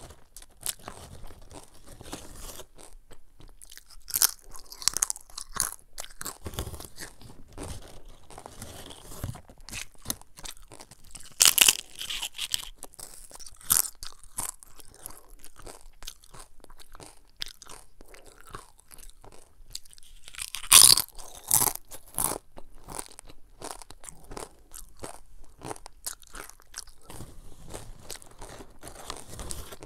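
Crunching and chewing of crisp cassava chips close to the microphone, a steady run of small crackles broken by a few much louder crunches spread through.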